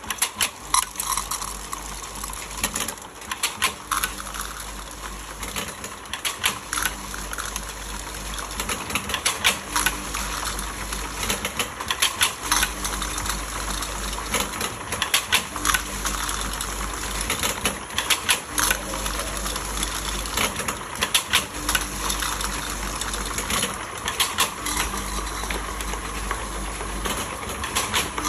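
Tablet-counting and tin-handling packaging line running: a steady clatter of sharp clicks and rattles as tablets drop into metal tins and the tins knock along a stainless-steel conveyor. Under it, a low machine hum cuts in and out every second or two.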